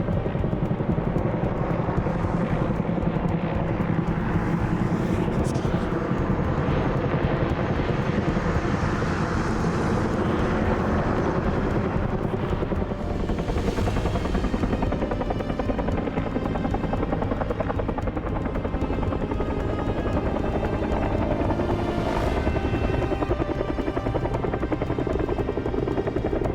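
Firefighting helicopter flying, its rotor beating in a fast, even chop with a steady engine whine, unbroken throughout.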